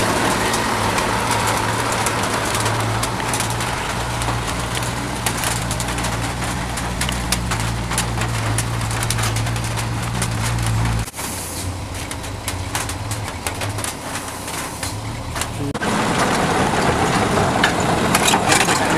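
A heavy vehicle's diesel engine running steadily at low revs, with scattered clicks over it. About eleven seconds in the engine sound drops away abruptly, leaving quieter outdoor noise, and louder sound returns near the end.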